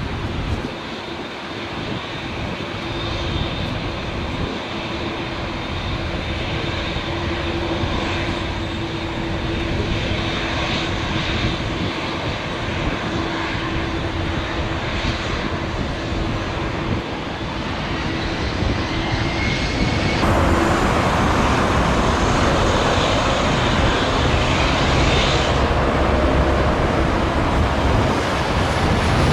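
Jet airliner engines rumbling steadily, growing gradually louder. About two-thirds of the way through, the sound jumps suddenly to a louder, fuller roar.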